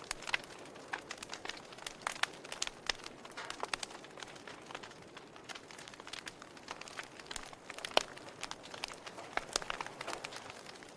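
Wood fire in a fireplace crackling: irregular sharp pops and snaps over a soft hiss, with one louder snap near the end.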